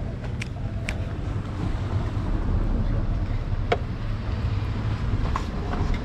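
Steady low rumble of a moving vehicle, with a few faint clicks.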